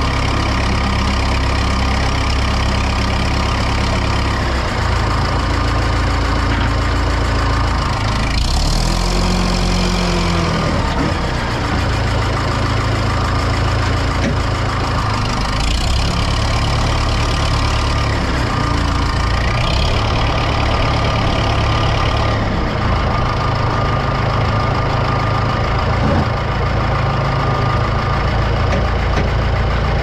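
Case 830 tractor engine running steadily, heard close up, as the tractor drives with its front loader; the engine speed rises and falls briefly about nine seconds in.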